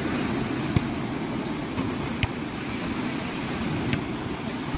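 Small waves breaking and washing on a sandy beach: a steady low rush of surf, with a few faint clicks.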